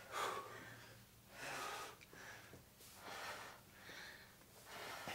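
Faint, heavy breathing from a person doing flutter kicks, with regular breaths about once a second, a sign of exertion.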